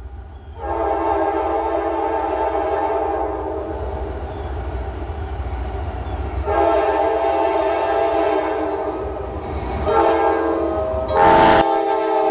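Diesel locomotive air horn on a Norfolk Southern freight train, a chord of several tones, sounding the grade-crossing signal as it approaches: two long blasts, a short one and a long one, the last the loudest as the locomotive reaches the crossing. A low rumble runs underneath, and there is a brief rush of noise near the end.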